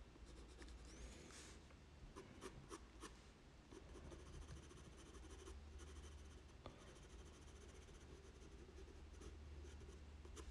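Faint scratching of a 4B graphite pencil on sulphite paper as lines are drawn and shaded with short strokes.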